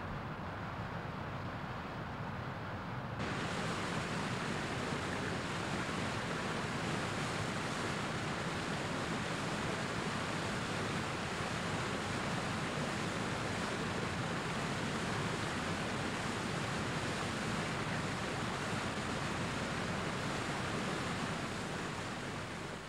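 Waterfall: a steady rush of falling water. It grows fuller and louder about three seconds in.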